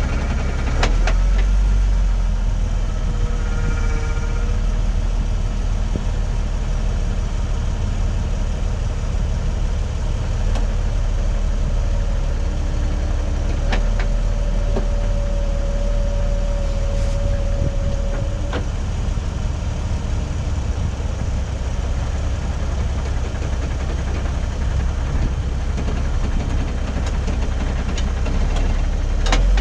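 Off-road vehicle's engine idling steadily, close to the body, with a few sharp clicks or knocks and a faint whine held for a few seconds midway.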